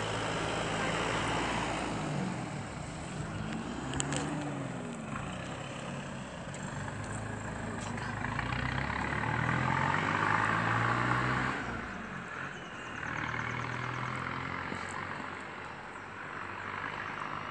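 Road traffic going by: engine hum and tyre noise from passing vehicles, with engine pitches rising and falling as they pass, loudest about ten seconds in.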